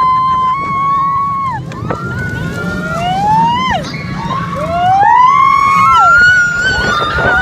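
Riders on a spinning amusement ride screaming: several overlapping high cries that slide up, hold and drop away, one after another, over the steady low rumble of the ride.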